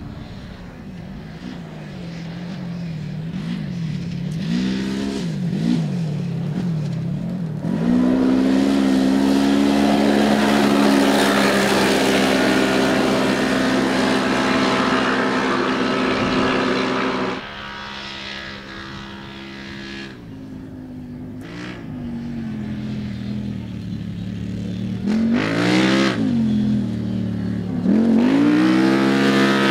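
Side-by-side rally buggy engines running hard on a dirt stage, revs rising and falling through gear changes. The Polaris RZR 900 runs loud and close for about ten seconds, the sound breaks off suddenly about halfway, and other buggies rev up again in two rising climbs near the end.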